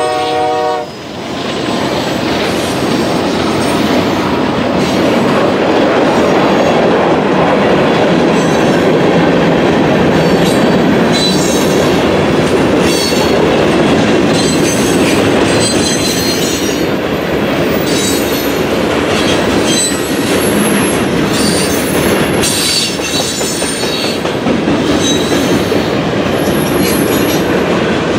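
Freight cars of a passing mixed freight train rolling by at speed, a steady noise of steel wheels running on the rails. The locomotive's horn cuts off about a second in, and thin high wheel squeals come and go through the second half.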